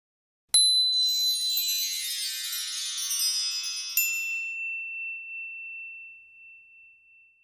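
Logo sting of bright chimes: a sparkling cascade of high chime tones starts suddenly about half a second in and shimmers away. A second bright ding about four seconds in leaves a single high tone ringing and slowly fading out.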